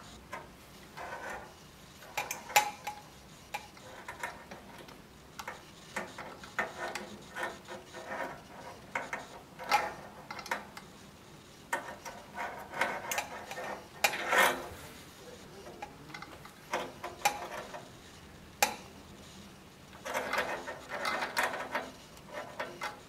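Irregular clicks, taps and rubbing of hands working small plastic and glass parts as a screw-threaded boiler coupling with split nut and rubber sleeve is fitted between a water still's level control and its glass boiler. There is one sharper click about two and a half seconds in, and a longer stretch of rubbing near the end.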